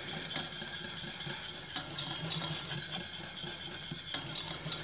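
Wire whisk stirring thickening pastry cream in a stainless steel pot, its wires clicking and scraping against the metal in an irregular run.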